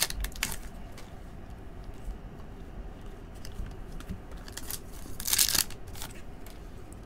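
Wrapper of a Topps Chrome Platinum baseball card pack crinkling as it is handled, with a short rustle at the start. About five seconds in, the pack is torn open in one loud rip lasting about half a second.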